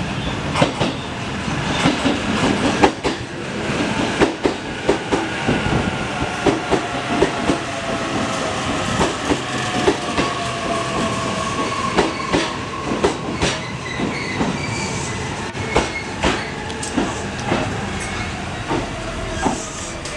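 JR East E531-series electric commuter train pulling into a station: its wheels knock over the rail joints in an irregular run of clacks, while a whine from the train falls slowly in pitch as it slows to a stop.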